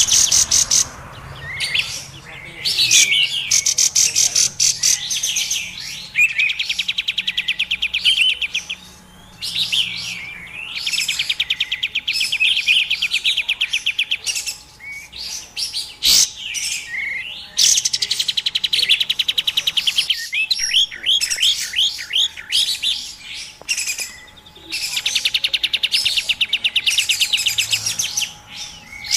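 Looped lure recording of kapas tembak song: runs of rapid, noisy chattering trills two to three seconds long, separated by short gaps and sweeping whistled notes, mixed with female Asian fairy-bluebird calls.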